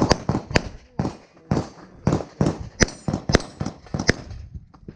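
A pistol fired rapidly in quick strings, about a dozen sharp shots in the five seconds, some in close pairs, while a stage is shot at speed.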